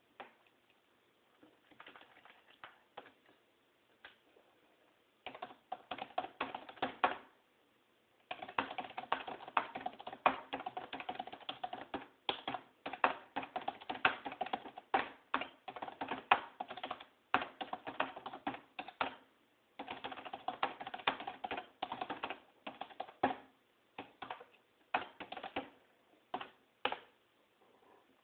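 Fast typing on a keyboard: a few scattered keystrokes, then long runs of rapid clicking keys broken by short pauses, thinning out again near the end.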